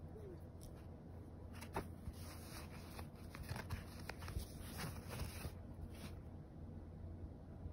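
Soft rustling and scratching of cloth with scattered small clicks, as a cat paws at a belt that a hand is covering with a T-shirt; the rustling stops about six seconds in.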